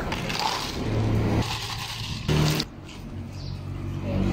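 Ice cubes scooped and rattling into plastic cups, with a motor hum that comes and goes in the background.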